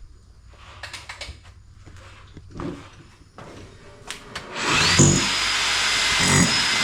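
A few light knocks, then about two-thirds of the way in a power drill starts up and runs steadily under load, boring a hole, its motor whine rising as it spins up and then holding one pitch.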